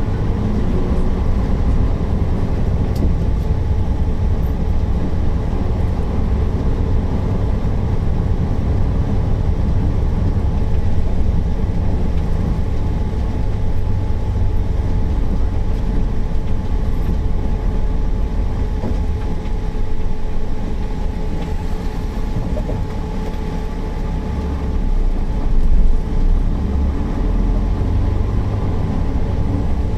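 Mercedes-Benz O408 city bus's diesel engine running while the bus is under way: a steady low rumble with a faint steady whine above it.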